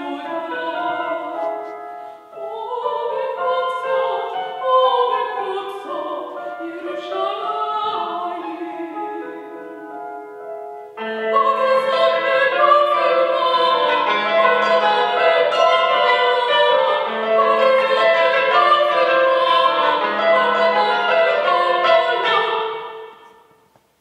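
A woman singing classical art song to cimbalom accompaniment. About halfway through, the music turns louder and denser with a repeating low note, then dies away just before the end as the song closes.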